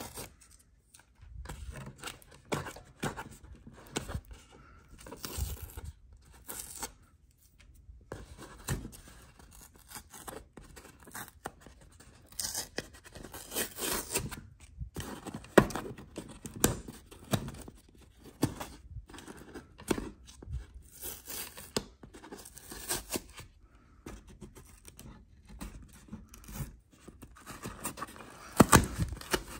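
Hand unpacking noises: irregular tearing, scraping and clicking of packaging and parts being handled, with a sharper knock about halfway through and another near the end.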